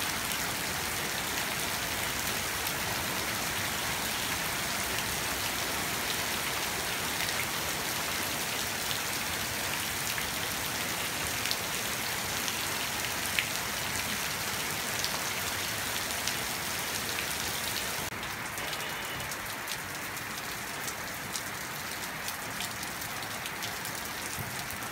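Heavy rain falling steadily onto a waterlogged yard and puddles, a dense even hiss with occasional sharp ticks of single drops. About three-quarters of the way through it turns a little quieter and duller.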